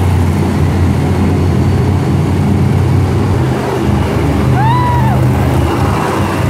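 Monster truck engine running loud in an arena, its pitch shifting as the truck drives across the dirt. A brief high rising-and-falling cry is heard about five seconds in.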